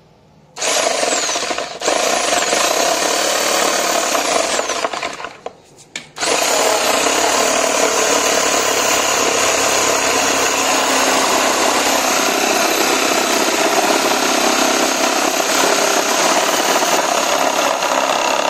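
Yuri JS70L 710 W electric jigsaw cutting through a wooden plank about an inch and a quarter thick, run at speed setting 6 with the orbital action on setting 1. It starts about half a second in, stops for a moment around five seconds, then restarts and runs steadily through the cut.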